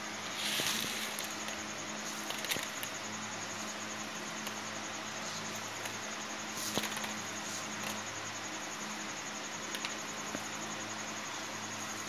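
Ridge gourd seeds rattling and rustling as a hand stirs and scoops them on a woven plastic sack, in several short bursts, over a steady hiss and low hum.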